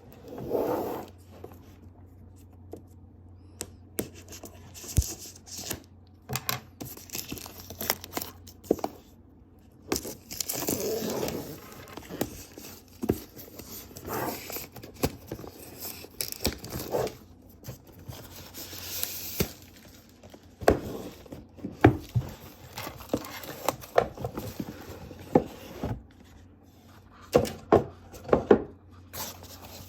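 Keyboard packaging being handled during unboxing: rustling and tearing of paper and plastic wrap, with irregular taps and knocks throughout.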